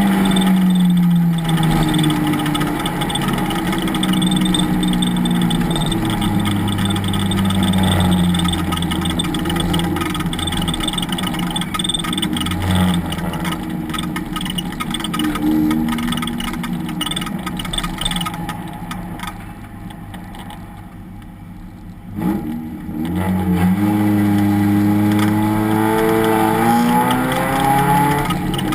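Race car engine under race conditions: the engine note drops at the start, then runs steadily. About two-thirds of the way in it eases off and goes quieter for a few seconds. It then climbs steadily in pitch under hard acceleration, with a sudden drop at the very end like an upshift.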